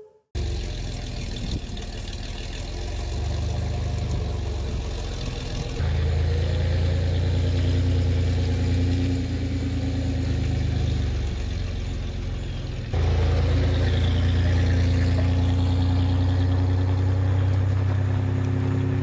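A full-size camper van's engine running as the van drives along a gravel road, a steady low hum with two sudden jumps in loudness.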